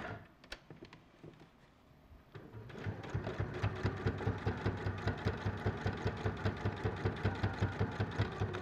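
Sewing machine starting up about two and a half seconds in and running at a steady, even stitching pace, top-stitching close to the edge of a shirt collar; a few faint handling clicks before it starts.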